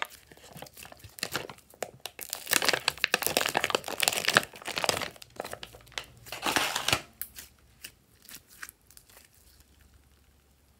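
Glossy gold slime squeezed and stretched by hand, making bursts of dense crackling and popping clicks. It dies down to a few scattered clicks after about seven seconds.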